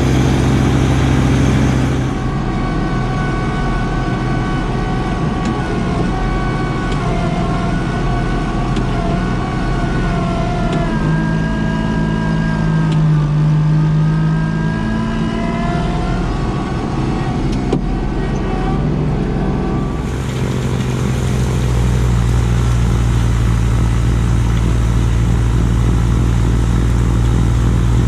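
Kubota LX2610 compact tractor's three-cylinder diesel running steadily under load while it powers the front snowblower. The sound changes about two seconds in and changes back near the end. In the middle a whining tone dips in pitch and then rises again.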